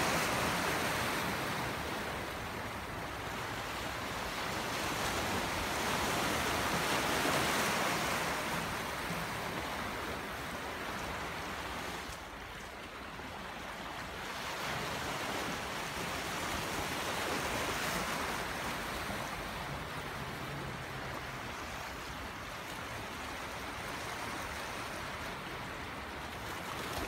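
Heavy surf breaking and washing in, a steady rush of water that swells and eases every several seconds.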